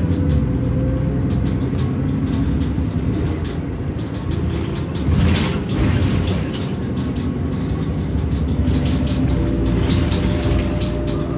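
Cummins ISM diesel engine of a 2007 New Flyer D40LF transit bus running steadily, heard from inside the cabin, with the body and fittings rattling and clicking. The rattling grows louder about five seconds in.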